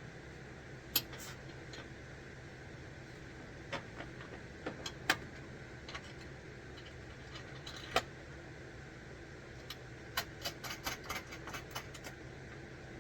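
Scattered light clicks and taps of tools and mounting hardware being handled, with a quick run of about a dozen clicks near the end, over a steady low hum.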